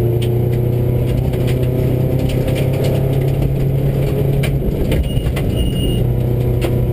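Subaru rally car at speed on gravel, heard from inside the cabin: the engine runs with a steady note that dips briefly about five seconds in, while loose stones tick and clatter against the car's body.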